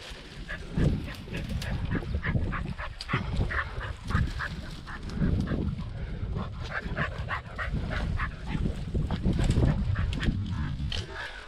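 Podenco hounds yelping in many short, quick, repeated cries, giving tongue as they work a rabbit's scent, over a low rumble.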